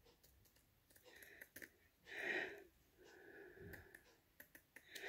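Near silence, broken by a few faint small clicks and one soft breath about two seconds in.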